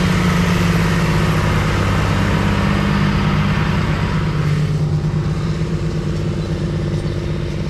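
John Deere tractor's diesel engine running steadily as it pulls a strip-till rig through the soil close by. The rushing noise from the rig dies away about four and a half seconds in as it moves off, while the engine's low hum carries on.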